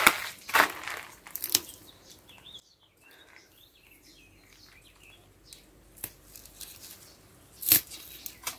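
Dill being picked by hand: stems tearing and leaves rustling in short strokes, loudest near the start and once near the end. Faint bird chirps in the middle.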